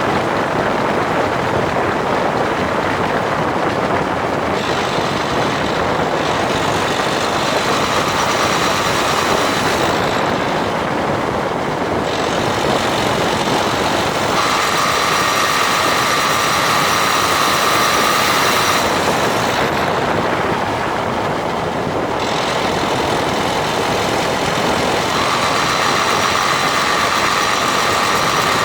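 Dacia Duster dCi 4WD driving with steady engine and road noise. A steady high grinding tone comes in and fades three times: the fault noise that appears in 5th or 6th gear when accelerating from 1500 to 1800 rpm, which the owner suspects is a faulty drive shaft.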